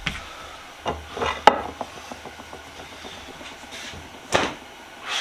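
Bench handling noises: a few sharp knocks and clicks of hard objects set down and picked up, the loudest about a second and a half in and another a little after four seconds, with faint rubbing between.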